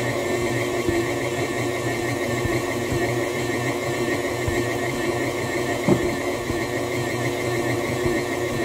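Electric stand mixer running steadily, its dough hook kneading bread dough, a continuous motor hum with a fine pulsing whir. A single knock about six seconds in.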